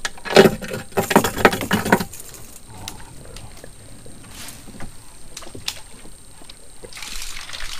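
A small paddled boat: a burst of clattering for about the first two seconds, then scattered single knocks on the hull, and a rising swish of water near the end.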